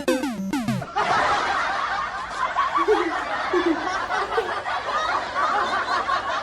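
A short run of falling electronic notes, then a canned audience laugh track: many people laughing together.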